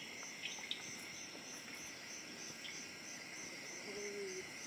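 An insect chirping in a steady, even rhythm of about three high-pitched pulses a second, faint against the forest background.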